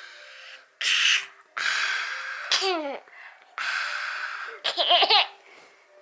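A young child's breathy, huffing laughter: three long breathy exhalations, each followed or broken by a short squealing vocal sound, about two and a half and five seconds in.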